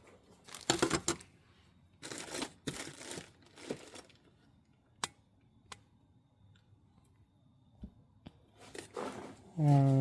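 Hands handling engine parts on a workbench: several short crinkling, tearing-like rustles in the first few seconds, then a few sharp single clicks as small parts are set down. Near the end a steady low hum with overtones begins.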